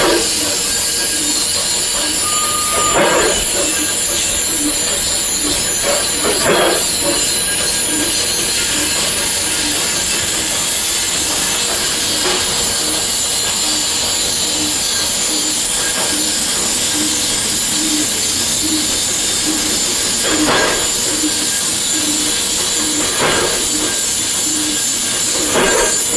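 Industrial machinery running steadily, with a high hiss, a regular low pulse a little under twice a second, and a few short louder bursts.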